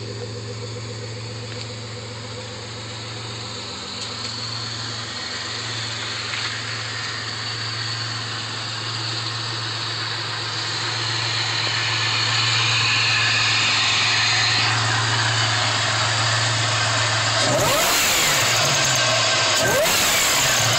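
2002 Pontiac Grand Prix GTP's supercharged 3.8-litre V6 idling steadily, then revved twice near the end.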